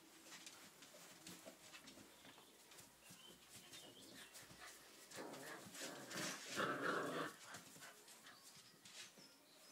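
Six-week-old puppies playing: light pattering and rustling of the shredded-paper bedding, with a louder bout of puppy vocalising from about five to seven seconds in.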